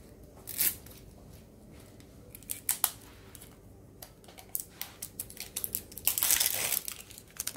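A food container or packet being worked open by hand: scattered clicks and crinkles, then a longer rustling noise lasting about a second, starting about six seconds in, which is the loudest sound.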